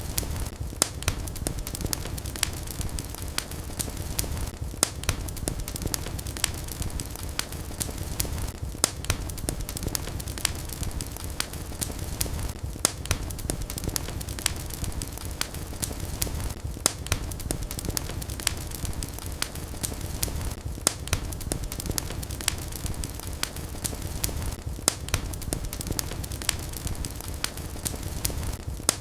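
Wood fire crackling in a fireplace: frequent sharp pops and snaps over a steady low rumble of burning.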